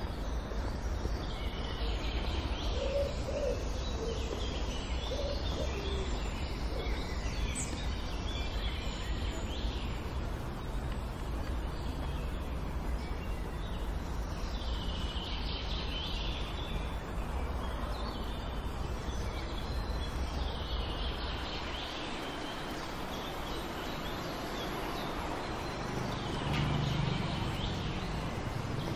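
Songbirds chirping and singing in short bursts over a steady low rumble. The rumble drops away about three quarters of the way through.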